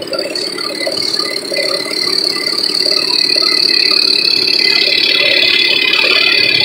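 Many small two-stroke moped engines running together, a buzzy, rattling din that gets louder over the first few seconds and then holds steady.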